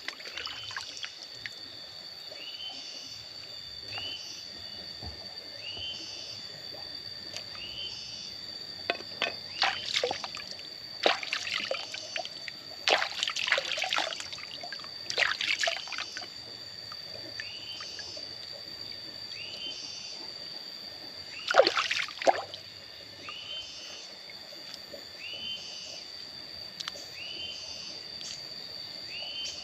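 Water splashing and trickling as wild mushrooms are washed by hand, in a run of short bursts in the middle and one louder splash about two thirds of the way through. Behind it a steady high whine and a short call repeating about once a second.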